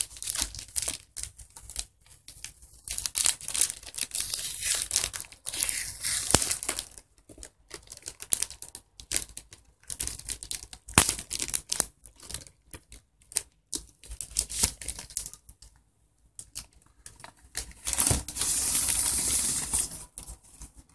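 Plastic packaging being torn open and crinkled by hand as a boxed art board is unwrapped, in irregular rustling bursts with sharp clicks, and a longer steady rustle near the end.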